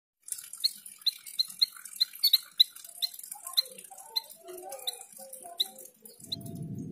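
Javan grey-throated white-eye (opior jawa) giving a run of short, sharp chip notes, about two a second, with softer, lower warbled notes joining in from about halfway through. A low rumble starts near the end.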